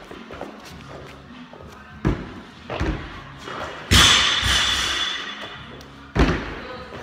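Thuds of a person landing on the gym floor and a wooden plyo box during burpee box jumps, a few heavy impacts a second or more apart. The loudest bang comes about four seconds in and rings on with a hiss for over a second.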